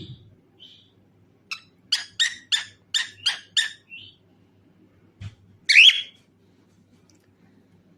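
Cockatiel chirping: a few short chirps, then a quick run of about seven notes, then one louder call that bends in pitch about six seconds in.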